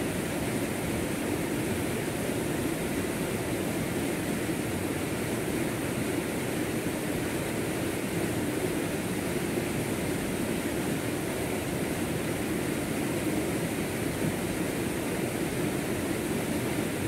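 Shallow stream rushing over rocks and small rapids, a steady, unbroken rush of water.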